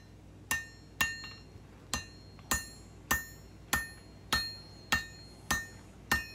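Blacksmith's hand hammer striking hot knife steel over the anvil horn, about ten blows at a steady pace of just under two a second. Each blow is followed by a short, high metallic ring from the anvil.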